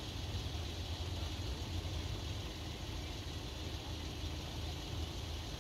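Steady low engine rumble, unchanging throughout, with a light hiss over it.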